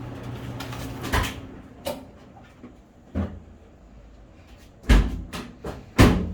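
Clothes dryer running with a steady hum that dies away about two seconds in as it is turned off, amid door knocks and clunks. Two loud thumps near the end, as a door is shut.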